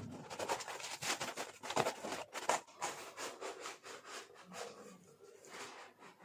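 Parcel packaging being opened by hand: irregular rustling, scraping and tearing, a little quieter towards the end.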